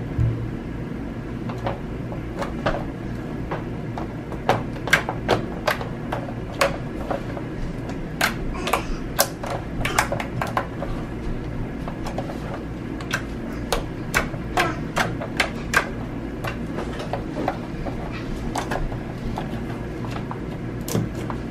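Runny, glossy pink slime poked and squished by fingers, giving many irregular wet clicks and pops over a steady low background hum.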